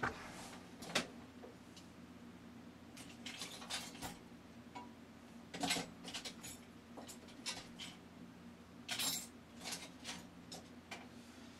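Small metal hand tools clinking and clattering on a workbench: irregular sharp clicks and clinks, a few louder than the rest.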